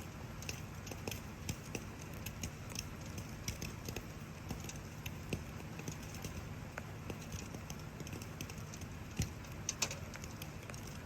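Wood campfire crackling, with irregular snaps and pops over a steady hiss of rain; two louder pops near the end.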